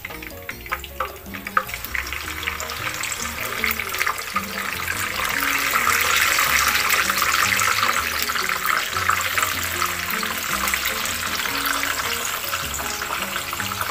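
Cubes of firm tofu frying in hot cooking oil in a small square frying pan: a few crackles at first, then a sizzle that builds as more cubes go in and is loudest around the middle, staying strong to the end.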